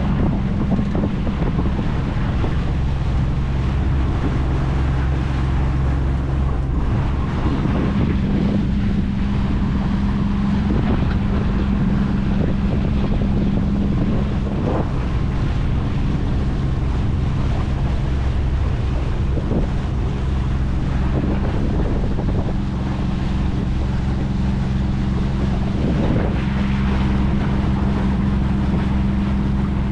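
25 hp Mercury four-stroke outboard motor running under way at a steady speed, holding an even pitch, with wind buffeting the microphone.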